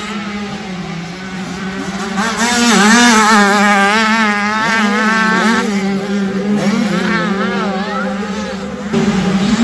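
65cc two-stroke motocross bike engines revving, the pitch wavering rapidly up and down, over a steady engine drone. The revving grows louder about two seconds in.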